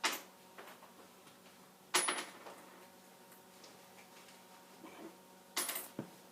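Dog hiccuping: three sharp, sudden hic sounds, about two and three and a half seconds apart, the last followed closely by a smaller one.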